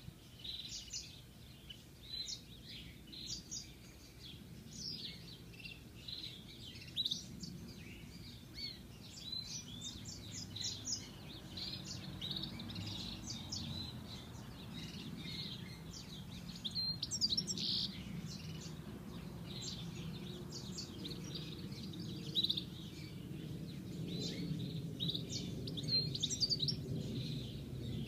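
European goldfinch singing a long, continuous run of short, high chirping and twittering notes, over a low background hum that grows louder in the second half.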